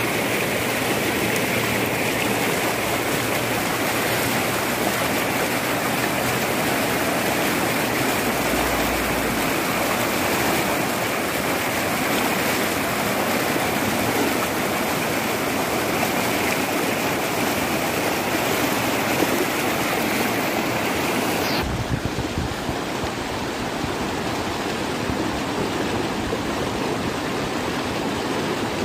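Muddy flood and debris flow rushing past in a steady torrent of water and mud. The sound turns duller about three-quarters of the way through.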